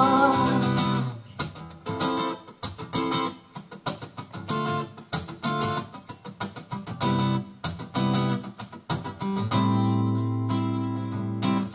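Acoustic guitar playing an instrumental break in a pop song: stop-start strummed chords, ending on a chord held for about two seconds.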